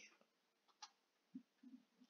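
Near silence: room tone with a few faint, brief sounds.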